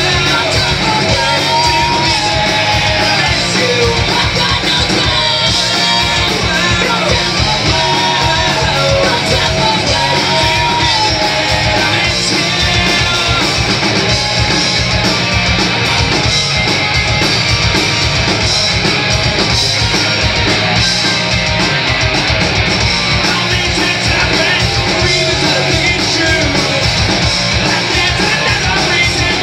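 A punk rock band playing live: distorted electric guitars, bass and drums, loud and steady, with sung and shouted vocals.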